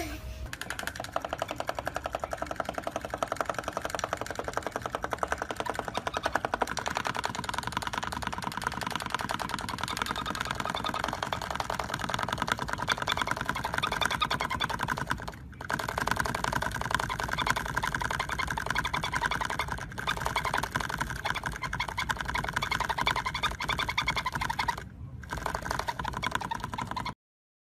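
Sun conure making a fast, even run of clicks, like a sewing machine, while pressed against a cloth toy. The run breaks off briefly about 15 and 25 seconds in.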